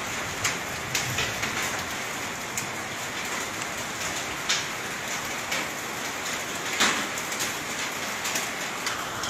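Steady patter of rain, with occasional sharper, louder drops striking close by.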